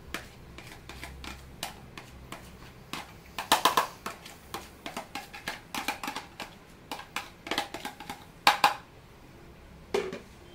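Hydrated bulgur wheat being tipped and crumbled by hand into a plastic bowl: a run of irregular clicks and taps, with a few louder clusters of handling noise.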